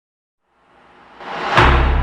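Opening of a song's musical introduction: a swell that grows louder for about a second, ending about one and a half seconds in on a deep booming hit like a timpani stroke, whose low note keeps sounding.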